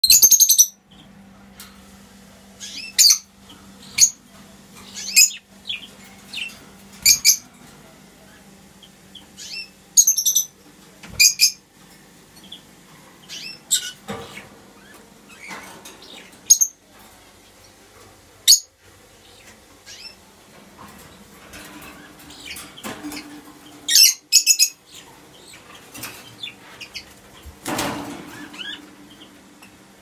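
Caged pet parrots, lovebirds and cockatiels, giving short, shrill chirps and calls that come every second or two at irregular intervals.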